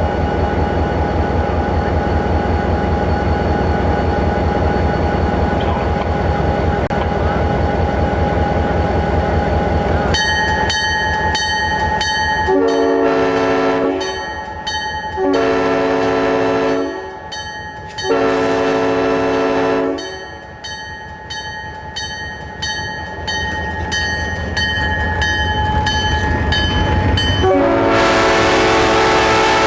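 GP30 diesel locomotive running with a low pulsing rumble. A rhythmic ringing then joins in, and a multi-chime K-type air horn sounds an A major 6th chord in three blasts of about two seconds each. Near the end it starts a long, held blast. The horn is a K horn, though it sounds like a Nathan M horn.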